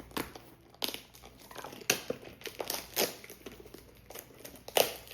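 Blind-box toy packaging being handled and opened: irregular crinkling crackles, the sharpest about two, three and nearly five seconds in.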